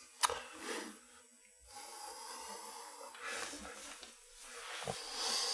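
Stifled laughter: short breathy snorts and puffs of air through the nose and mouth, with a sharp click near the start.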